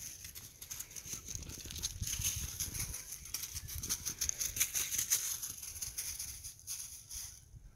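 Dry fallen leaves crackling and rustling underfoot as feet move through them, a busy run of small crunches that dies away near the end.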